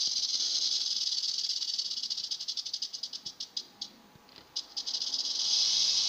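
Western diamondback rattlesnake (Crotalus atrox) shaking its tail rattle in a high, steady buzz, the defensive warning of an agitated snake. About two seconds in the buzz slows into separate clicks and almost stops near the four-second mark, then picks up again into a continuous buzz near the end.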